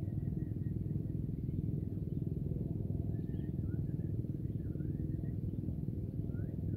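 A steady low engine-like rumble, with faint short high chirps wavering above it now and then.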